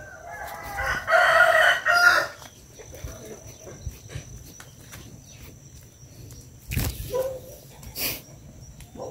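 A rooster crowing once, one drawn-out call of about two seconds. Two short knocks follow near the end.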